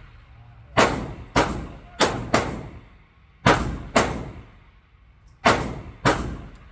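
Pistol shots at an indoor range: eight sharp reports, mostly in loose pairs, each trailing off in a short echo off the range walls.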